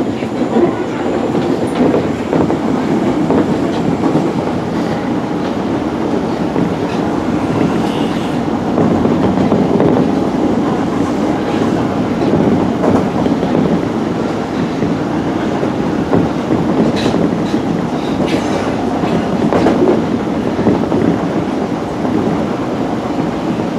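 Osaka Municipal Subway 20 series train running between stations, heard from inside the car: a steady rumble of wheels on rails, with a few sharp clicks in the second half.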